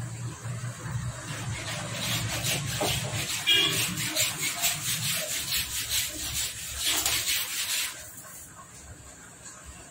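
Quick rubbing and scraping strokes, several a second, from hand work on a Honda Activa scooter's engine area, stopping about eight seconds in, with a brief squeak partway through over a low steady hum.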